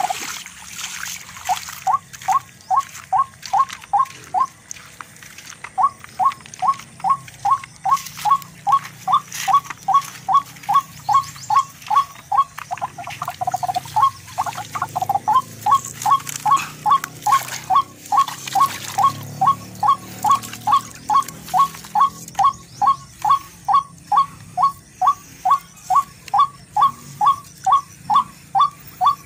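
A rail's call, a short rising note repeated very evenly about twice a second. The series pauses briefly about five seconds in, then resumes.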